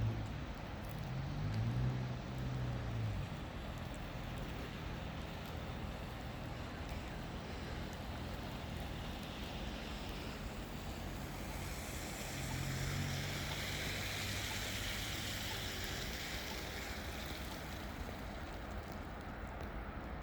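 A vehicle driving past: an engine hum and a hiss of tyres swell about two-thirds of the way through and fade, over a steady outdoor rush.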